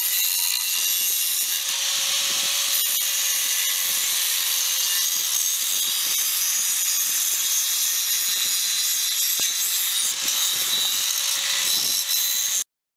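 Handheld Ryobi power tool running steadily with a cutting wheel grinding into a conch shell: a steady motor whine under a loud gritty hiss. The sound cuts off abruptly near the end.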